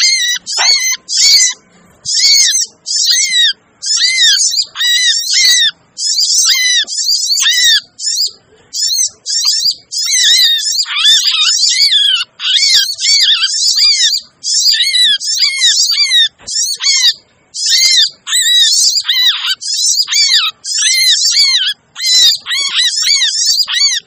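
Olive-backed sunbird (sogok ontong) lure calls: rapid, high chirps and chattering notes packed into dense runs with brief breaks, a noisy, agitated calling played to draw wild sunbirds down.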